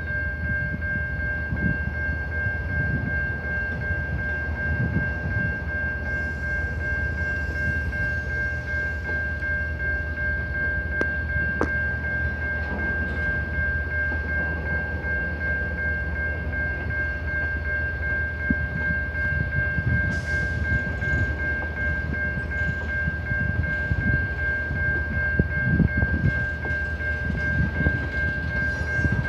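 Freight cars rolling past a grade crossing: a steady low rumble from the wheels with scattered knocks and a few sharp clicks. Over it, the crossing's warning bell rings continuously as one unbroken high tone.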